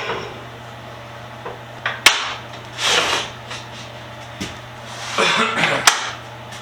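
Freshly ripped ash boards being handled after a cut: a few sharp wooden knocks, about 2 s in and again near the end, with short scraping slides of wood in between.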